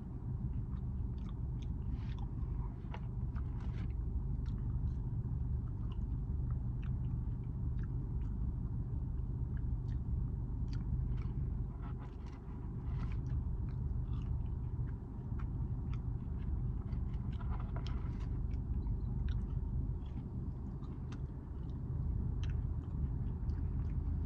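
A person chewing mouthfuls of Cajun fries with ketchup: many small, irregular wet clicks and crunches close to the microphone, over a steady low hum.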